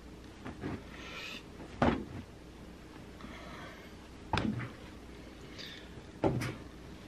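Three sharp knocks, about two seconds, four and a half seconds and six and a quarter seconds in, with soft rustling between them, like things being handled and bumped against a cupboard or appliance.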